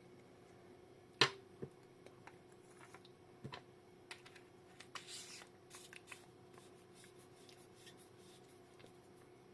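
Handling noises from a metal EDC flashlight: a sharp click about a second in, then lighter clicks and taps, with a short scrape around the middle.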